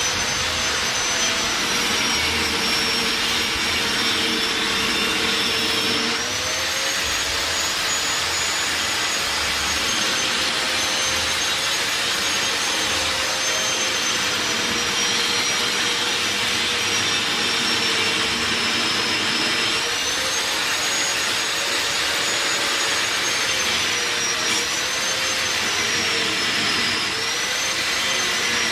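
Hydraulic water-well drilling rig running steadily: a loud machine hum with a whine that drifts slowly up and down in pitch, stepping up about six seconds in.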